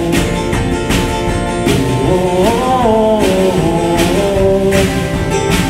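Live acoustic-rock duo music: a strummed acoustic guitar with a drum kit behind it and a few cymbal hits. Around the middle a brief sung phrase bends up in pitch and back down.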